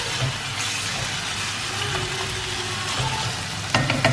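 Onions and tomatoes sizzling as they fry in a steel kadai while being stirred, with a few sharp clacks of the spatula against the pan near the end.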